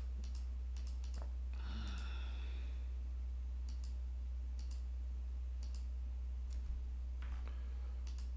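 Computer mouse clicking at irregular intervals, about once a second, each click a quick press-and-release pair, over a steady low electrical hum. A soft breath out about two seconds in.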